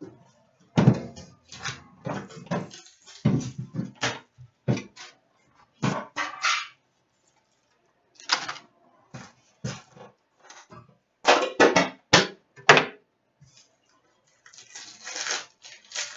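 A metal trading-card tin and its card packs being handled on a glass-topped counter: irregular clatters, clicks and knocks as the tin is opened and the packs are taken out and set down, then a longer rustle about fifteen seconds in as a pack is handled.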